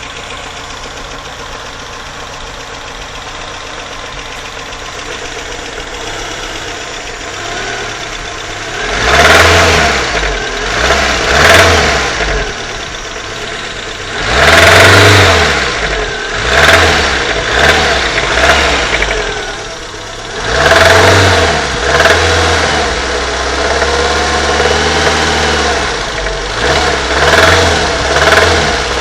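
Renault 19 engine idling steadily, then revved repeatedly in short blips from about nine seconds in, with a connecting-rod bearing knock. The rod bearing on cylinder one has spun, after new shells were fitted without regrinding the crankshaft.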